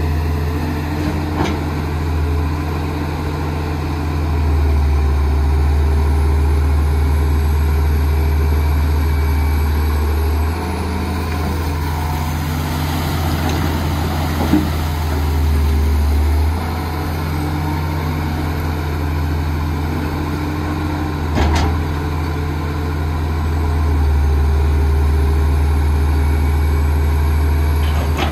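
Hydraulic excavator's diesel engine working, its note swelling louder for several seconds at a time and easing back as the hydraulics take load during the dig-and-load cycle. Two sharp metallic knocks, one about halfway and one about three-quarters of the way through.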